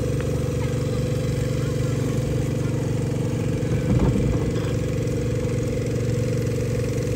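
A small engine running steadily at idle, a constant low drone, with a brief louder bump about four seconds in.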